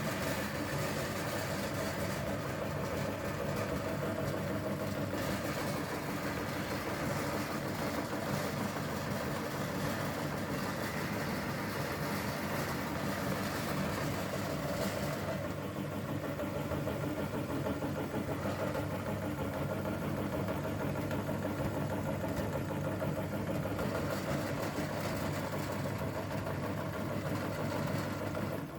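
Electric meat grinder running steadily as it grinds spaghetti, a continuous motor hum that cuts off at the very end.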